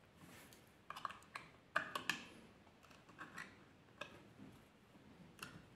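Faint, scattered clicks and small snaps of a thin screwdriver prying the metal top cover off a laptop-size hard drive, about a dozen irregular clicks.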